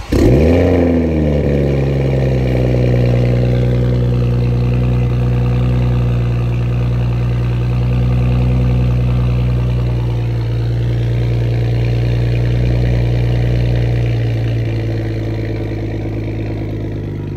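Cold start of a Toyota MK5 Supra through an Autowerke catted downpipe and Tomei titanium cat-back exhaust. The engine catches suddenly and flares up in revs, falling back within about a second, then settles into a steady idle.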